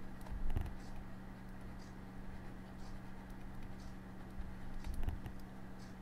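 Faint light taps and scratches of a stylus writing on a tablet, with two soft low bumps about half a second and five seconds in. A steady low electrical hum lies underneath.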